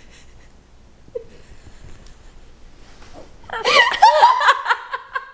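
A woman laughing in a high-pitched burst that starts about three and a half seconds in, after a quiet stretch.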